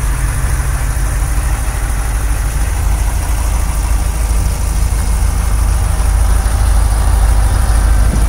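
KamAZ-44108 truck's YaMZ Euro-2 diesel engine idling steadily, a deep even rumble that grows a little louder in the second half.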